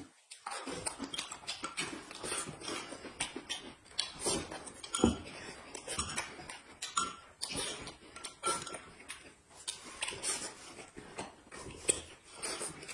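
Close-up eating sounds: a quick run of slurps, lip smacks and chewing, with chopsticks and a spoon clicking against plate and glass cup, one louder click about five seconds in.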